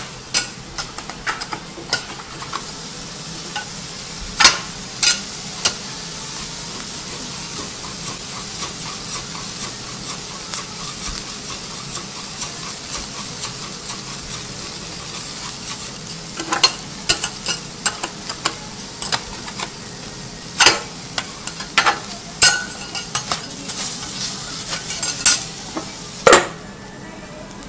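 Food sizzling on a flat iron teppanyaki griddle, a steady frying hiss, with many sharp clinks and scrapes of metal spatulas against the hot plate. The clinks come in two busy stretches, a few seconds in and again in the second half, and the sizzle drops away near the end.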